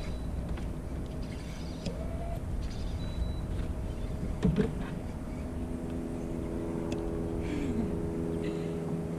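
A small boat's motor hums steadily over a low rumble, its pitch holding level. A second, fuller hum joins about halfway through.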